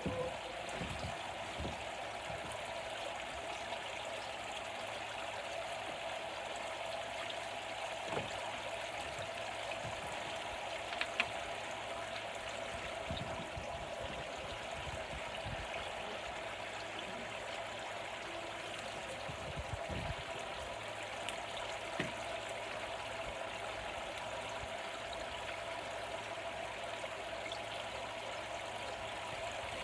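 Steady rush of moving water, with a faint even hum underneath and a few small knocks.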